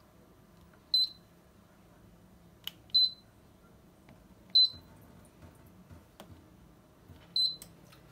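Touch control panel of a Hutt D9 dual-basket air fryer beeping at each button press as the cooking time is set: four short, high beeps, a second or two apart.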